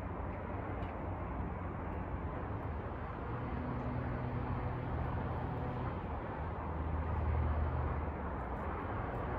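Steady outdoor hum of road traffic, with a vehicle's low engine drone swelling about seven seconds in and easing off again.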